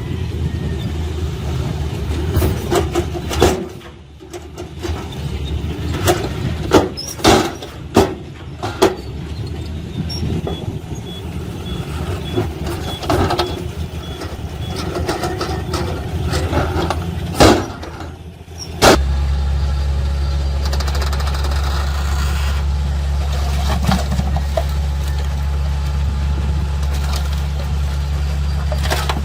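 Diesel engines of heavy earthmoving machinery running, with a series of sharp knocks and clanks over the first two-thirds. About two-thirds of the way in, a louder, steady low engine sound takes over.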